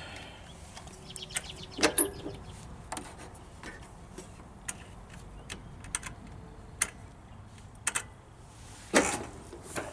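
Scattered, irregular clicks and knocks with no steady sound between them, the loudest a short cluster about two seconds in and another near the end.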